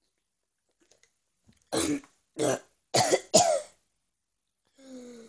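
A young person coughing hard four times, right after a swig from a can, then a low drawn-out groan near the end.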